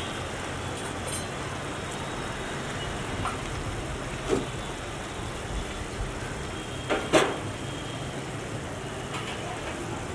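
Steady rumbling background noise over a large cast iron pan of shakshuka cooking, with a short knock about four seconds in and a louder double knock around seven seconds in.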